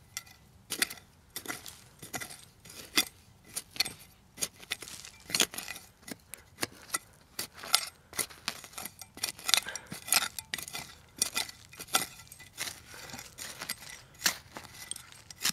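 Serrated metal hand digging tool stabbing and scraping into dry dirt full of nails and broken glass. It makes an irregular run of sharp scrapes and clicks, about two or three a second.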